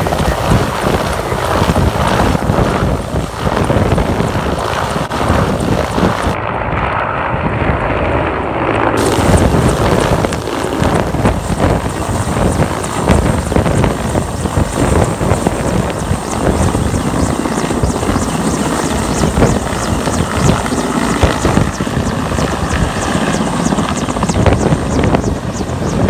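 Mi-8-type transport helicopter's turbines and rotors running loud as it lifts off and passes overhead, with steady rotor chop and heavy rotor-wash wind buffeting the microphone.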